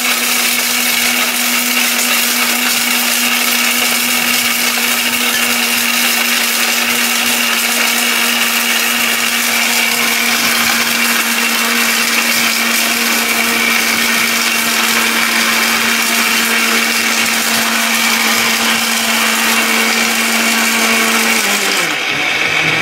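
Electric mixer-grinder with a stainless steel jar running steadily at full speed, milling whole turmeric into powder. Near the end it is switched off and the motor's pitch drops as it winds down.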